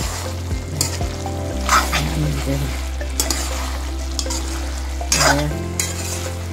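A wooden spatula stirs and scrapes through bamboo shoots, potatoes and fish frying and sizzling in an aluminium kadai, with several scraping strokes against the pan. A low steady drone runs underneath and shifts pitch about a second and a half in and again near the end.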